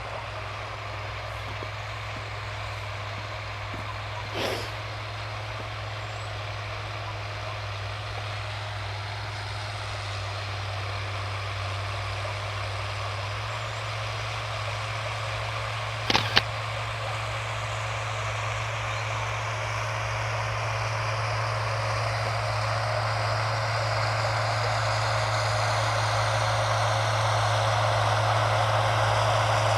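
Farm tractor engine running steadily while plowing, growing gradually louder as it draws closer. Two short sharp knocks stand out, one about four seconds in and a louder one about sixteen seconds in.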